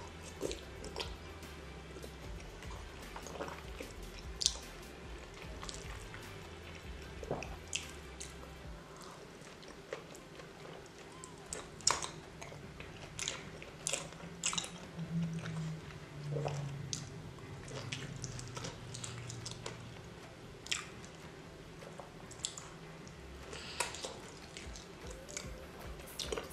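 Close-up wet chewing and biting of raw salmon sashimi, with many short, sharp mouth clicks and smacks at irregular intervals.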